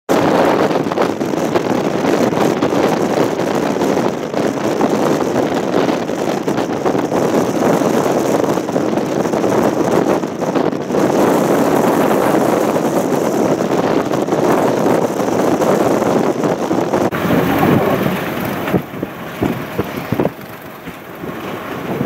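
High blizzard winds blowing hard and buffeting the microphone, a loud, steady rushing noise that eases off near the end, with a few short knocks.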